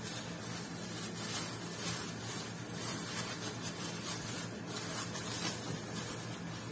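Thin plastic bag rustling and crinkling in the hands as a wrapped lump of modelling paste is handled, over a steady low hum.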